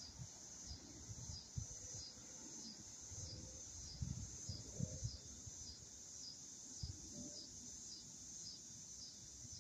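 A chorus of insects trilling in high, steady tones that swell and dip about every three-quarters of a second, with a few soft low bumps underneath.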